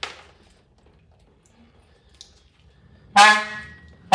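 Two loud metallic clangs about a second apart near the end, each ringing out and fading over most of a second, as metal is knocked on metal while the engine is being worked on.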